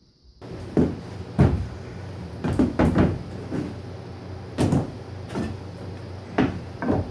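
A string of irregular wooden knocks and clunks, about nine in all, over a low steady hum.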